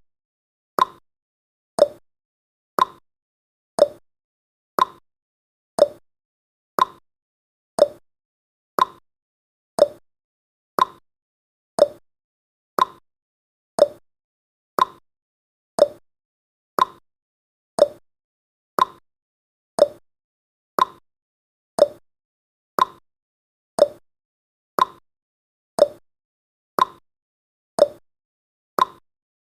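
Clock-style ticking sound effect of a countdown timer: one short, sharp tick every second, each dying away quickly, at a perfectly even pace.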